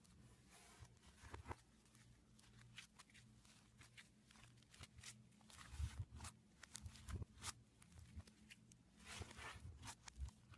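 Slime being squished and stretched by hand: faint, irregular sticky clicks and crackles, thicker in a couple of clusters.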